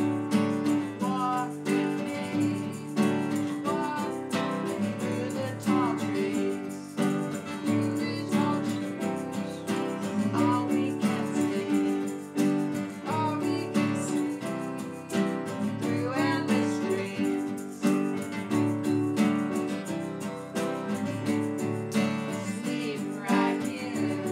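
Acoustic folk song played live: a strummed acoustic guitar with a digital keyboard playing piano and a hand shaker, and a man and a woman singing.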